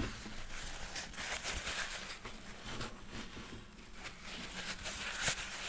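Paper towel rubbing and wiping in uneven strokes across the finished top of an old Guild acoustic guitar, clearing off excess thin super glue. A sharp knock right at the start and a click about five seconds in.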